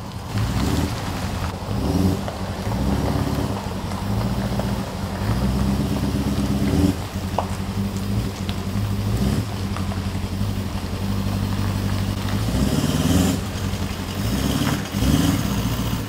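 Toyota LandCruiser's V8 engine running under low-speed load while towing a caravan into position, with the revs rising and falling several times as it is manoeuvred.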